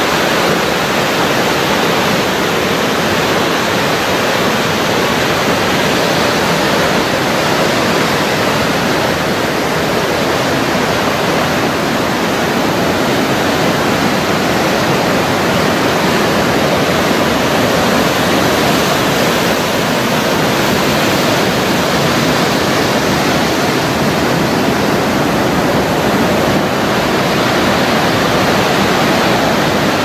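Loud, steady rush of whitewater, an even roar with no breaks or changes.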